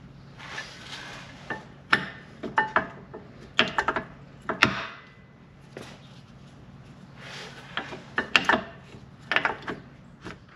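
Metal-backed brake pads being handled and fitted into a rear brake caliper. Short scraping rubs alternate with clusters of sharp clicks and clinks as the pads knock against each other and against the caliper.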